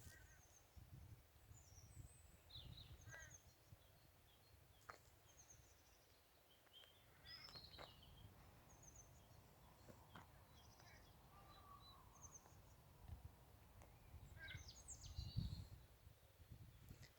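Faint birdsong: small birds chirping and calling here and there, over a low rumble that swells briefly near the end.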